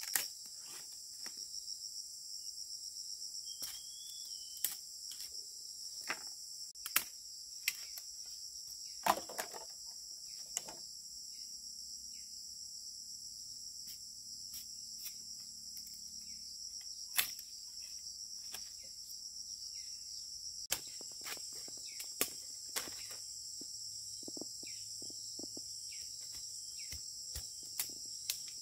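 Steady high-pitched insect chorus, typical of crickets, with scattered sharp clicks and knocks over it, a few of them louder.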